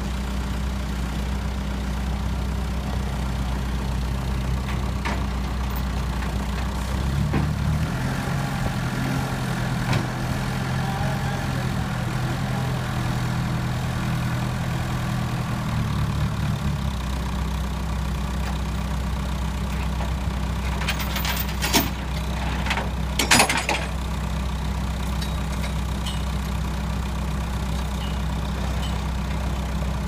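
Ingersoll-Rand RT-708G rough-terrain forklift's engine running steadily, revving higher for about ten seconds as it drives the skid steer up onto the tow truck's tilted bed, then settling back. A few sharp metal clanks come about two-thirds of the way through.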